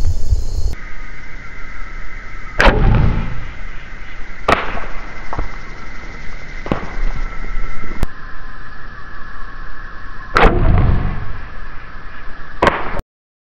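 Steady high insect chorus of crickets, broken by several sharp clicks and two heavier thumps about two and a half and ten and a half seconds in; the sound cuts off suddenly near the end.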